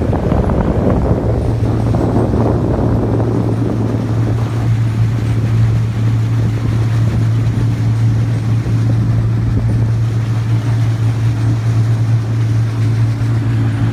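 A motorboat's engine running at a steady speed with an even low hum, under the rush of wind and water that is strongest in the first few seconds.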